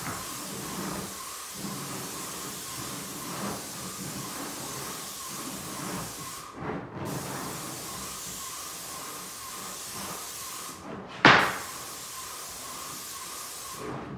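Paint spray gun hissing steadily as paint is sprayed onto a wooden wall; the spray cuts off briefly twice, and a short loud knock sounds about eleven seconds in.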